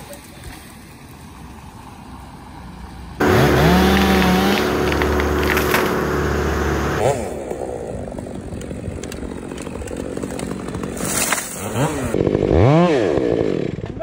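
Chainsaw running and cutting wood, heard across clips cut together. It starts abruptly about three seconds in and climbs in pitch as it revs up, then near the end the engine revs up and down several times.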